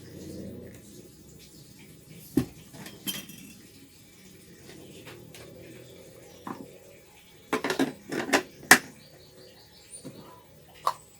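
Dishes and utensils being handled on a table, clinking and knocking: a few scattered single clinks, then a quick run of louder clinks about seven to nine seconds in.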